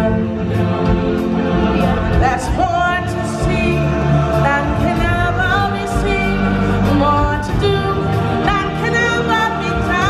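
Music with voices singing together over instruments, with held notes that waver in pitch.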